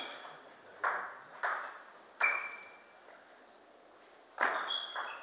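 Table tennis rally: sharp pings of the ball off the bats and the table, about four hits spaced well under a second apart in the first two and a half seconds. After a short lull, a denser, louder run of clicks comes near the end.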